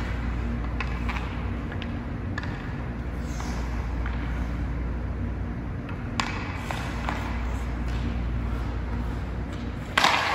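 STX Stallion HPR 2 hockey stick tapping and moving pucks on the ice in small clicks over a steady low hum. Near the end comes a loud, sharp crack with a ringing tail as the stick strikes the ice and puck on a shot.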